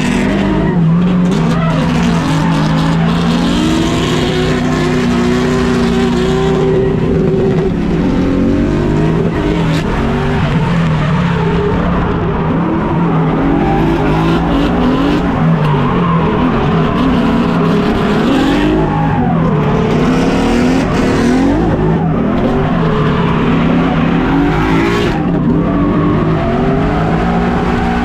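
Drift car engine revving hard, its pitch rising and falling over and over as the car slides, with tyres skidding and squealing.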